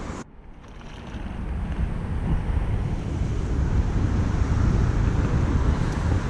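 Wind buffeting the microphone: a steady low rushing rumble that fades back in after a brief drop just after the start.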